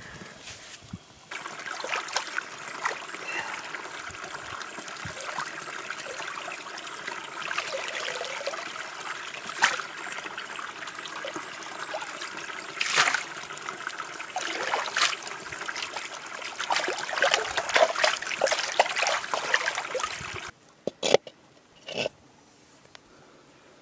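Water pouring and splashing into shallow water, a steady trickling with frequent splashes that starts about a second in and cuts off abruptly near the end. A few sharp knocks follow after it stops.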